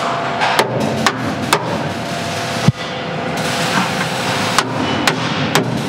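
A hammer striking metal: about seven sharp, irregular clanks, the loudest a little before halfway. They come while pins are driven into a military truck's leaf-spring and axle mounts, over a steady mechanical running noise.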